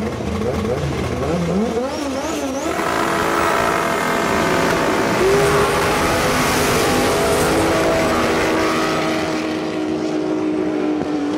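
Two drag racing cars at the start line, engines revving up and down, then launching at full throttle about three seconds in and pulling away down the strip, their sound slowly fading with distance.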